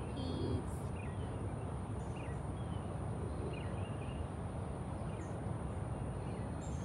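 Outdoor ambience: a steady low rumble under a constant high insect drone, with short bird chirps about once a second.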